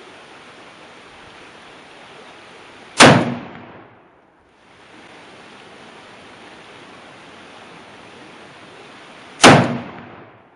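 Two shots from a French Berthier Model 1892 carbine firing 8x50R Lebel rounds, about six and a half seconds apart, each a sharp report that dies away over about half a second, with a steady hiss between them.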